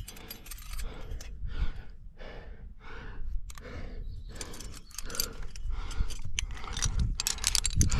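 A climber panting hard, about two breaths a second, with sharp metallic clinks of carabiners against the steel anchor chains in the second half.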